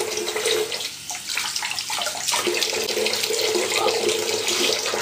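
Water tap running steadily into a bathroom sink.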